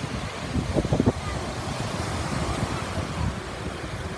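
Small waves washing up on a sandy shore, with wind rumbling on the microphone. A few short, louder bumps come about a second in.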